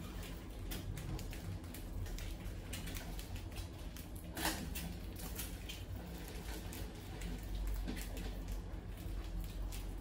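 Mice scurrying and scrabbling, their claws making small irregular clicks and scratches on the wire-mesh lid and glass of a tank trap, with one sharper click about four and a half seconds in. A low steady hum runs underneath.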